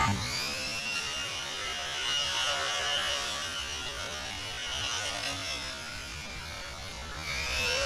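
Motor whine of an electric RC car running at speed: a high tone that rises at the start and then holds steady, with another rising whine near the end.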